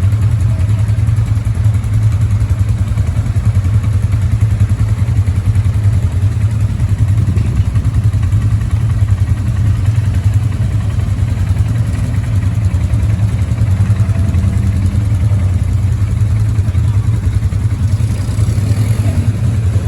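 ATV engine running steadily during a ride.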